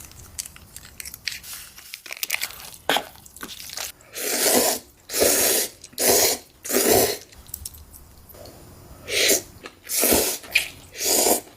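Close-miked chewing of crunchy food: scattered small crunches at first, then loud crunching chews about one a second, a short pause, and three more chews near the end.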